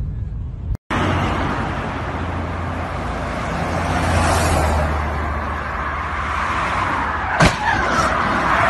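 Road traffic on a multi-lane highway heard from the shoulder: a steady rush of cars going by, one pass swelling louder about four seconds in. A single sharp bang about seven and a half seconds in.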